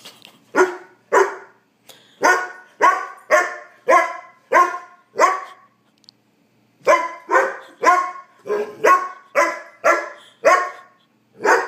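Black Labrador puppy barking over and over, about two barks a second with a short pause about six seconds in: insistent demand barking for his dinner.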